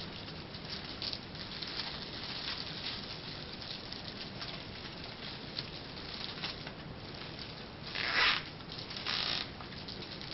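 Plastic merchandise bags crinkling and rustling as they are handled, with two louder rustles about eight and nine seconds in.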